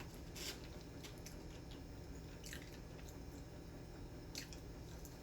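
A person chewing fried chicken bites with the mouth close to the microphone: faint wet, squishy mouth sounds with a few soft clicks.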